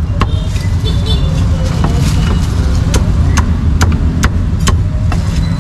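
Meat cleaver chopping crispy roast pork belly on a thick round wooden chopping block: about seven or eight sharp chops, most of them about half a second apart in the second half. Under them runs a steady low rumble of road traffic.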